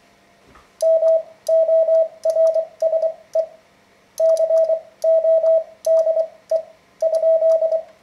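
Morse code sent by hand on a telegraph key, heard as a steady single-pitch beep keyed in dits and dahs, with a faint click at each keystroke. The characters come in two runs separated by a short pause a little before the middle.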